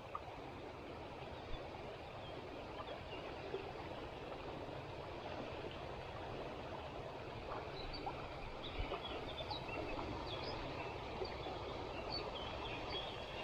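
Steady rush of a shallow river flowing over a stony bed, with a few faint high chirps in the second half.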